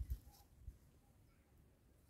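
Faint handling of grapevine leaves: two soft low thumps and a brief light rustle, otherwise near silence.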